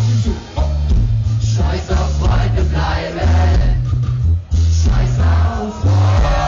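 Live rock band playing loudly, with a heavy pulsing bass beat, guitar and a man singing, heard from within the audience; the band breaks off briefly about four seconds in.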